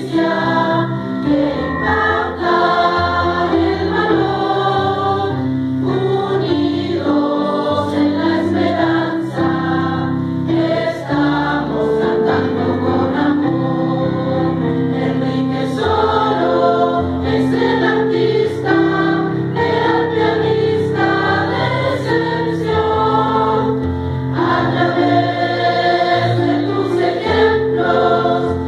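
Mixed choir of adult and children's voices singing a school hymn, holding long notes in a steady tempo.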